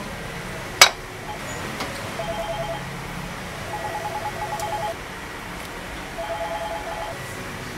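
Metal serving tongs clink sharply once against the pot about a second in, while lifting stuffed sheep intestines out of broth. Behind this, an electronic trilling ring sounds in several short bursts, like a telephone ringing.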